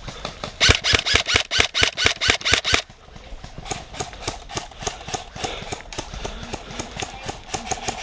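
An airsoft gun fires close by: a long run of rapid shots, about eight a second, that stops about three seconds in. Fainter rapid airsoft fire then carries on.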